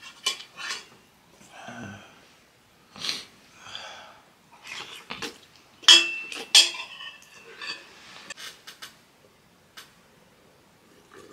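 A fork clinking and scraping against a stainless steel pot, mixed with noodle slurping and sharp breaths. The loudest clinks, with a brief metallic ring, come about six seconds in; it goes quieter near the end.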